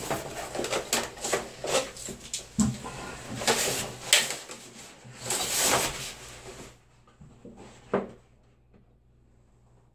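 Rustling and scraping of a length of wallpaper being handled and rubbed against the wall, in a run of strokes that stops about seven seconds in, followed by one sharp tap about a second later.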